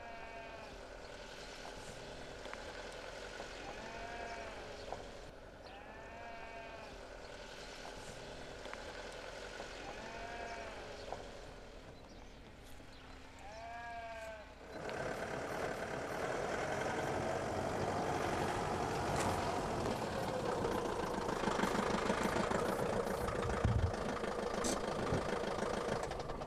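Livestock bleating now and then: about six short calls in the first half. Then, about halfway through, a vehicle engine starts up loud and runs steadily.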